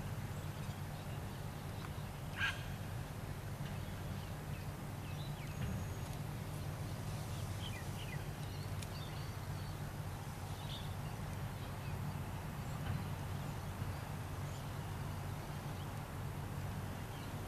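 Heavy machine's diesel engine running steadily at low revs, with faint bird calls and a single sharp click about two and a half seconds in.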